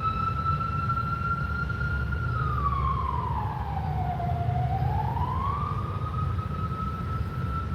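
A siren wail: one unbroken tone that holds steady, slides down and back up about halfway through, then holds again, over a steady low rumble.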